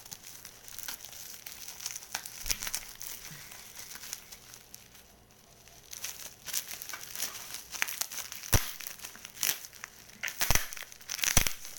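Parcel wrapping being crinkled and torn open by hand in irregular bursts, with a quieter pause about halfway and a few sharp snaps near the end.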